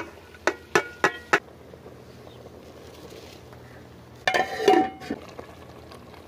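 Several sharp clinks of a plate tapping the rim of a metal cooking pot in the first second and a half. About four seconds in comes the loudest sound: raw rice pouring off the plate into the pot of broth, a rush of grains with a ringing note from the pot.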